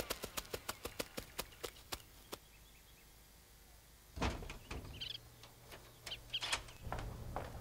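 A run of short clicks that slows and fades over the first two seconds. After a quiet spell a sudden low thump comes about four seconds in, followed by a few short bird chirps and scattered clicks over a low steady hum.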